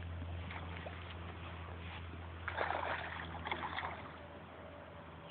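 Water splashing and sloshing, in a short flurry about two and a half seconds in, over a steady low hum.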